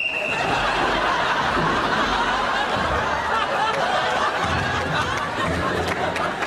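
Studio audience laughing loudly and continuously.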